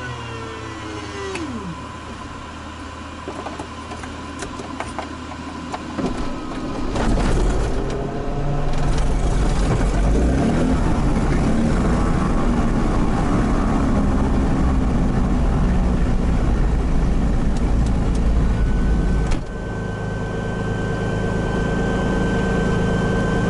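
Cirrus SR22's six-cylinder Continental piston engine being started: the engine catches about six or seven seconds in and runs loud and fast. About nineteen seconds in it drops suddenly to a steadier, lower idle.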